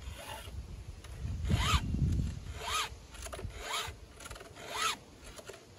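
Chainsaw chain being hand-filed with a STIHL 2-in-1 file guide: round files sharpen the cutter tooth while the flat file lowers the depth gauge in the same stroke. The rasping strokes come about once a second, each with a brief ring that rises and falls in pitch.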